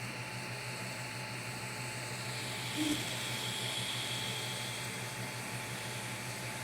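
Creality CR-M4 3D printer running, with a steady fan hum and a high motor whine that sets in about two seconds in.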